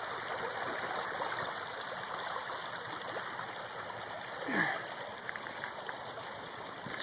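Creek water flowing steadily below the trail, with a brief brushing sound about four and a half seconds in.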